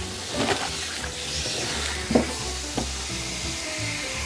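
Tap water running onto chopped salted napa cabbage in a bamboo basket, with a steady hiss, while hands toss and squeeze the wet leaves. Sharp handling noises come about half a second in, about two seconds in and just before three seconds in. Soft background music plays underneath.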